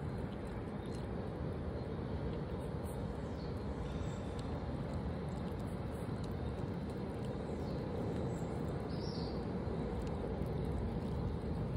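Steady low outdoor background rumble, with a few faint high bird chirps about three and nine seconds in.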